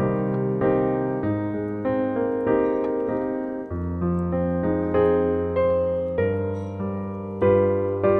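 Background piano music: a new note or chord is struck about every 0.6 seconds, and each one rings and fades before the next.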